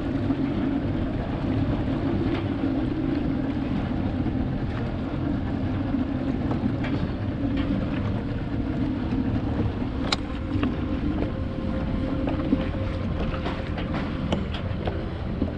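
Bass boat's outboard motor running at idle as the boat creeps forward, a steady low rumble with wind buffeting the microphone. A few faint knocks and clicks in the second half.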